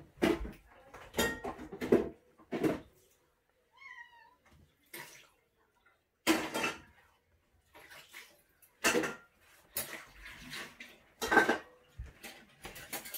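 Dishes and silverware clattering as they are handled at a kitchen sink, in a series of separate clinks and knocks. A cat meows faintly once, about four seconds in.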